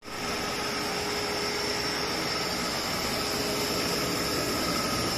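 Kaeser SX7.5 rotary screw air compressor running steadily: an even rush of machine noise with a constant high whine.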